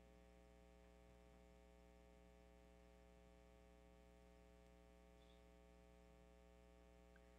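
Near silence: a steady low hum with no other clear sound.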